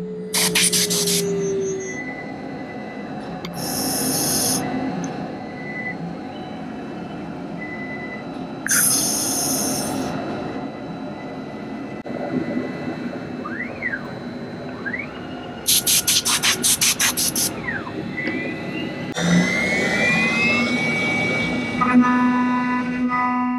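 The spindle of a DIY CNC router with an ISO20 automatic tool changer spins down, then several short loud hissing blasts and whirring axis moves follow as the tool is changed. Near the end the spindle spins back up to a steady whine at 15000 RPM.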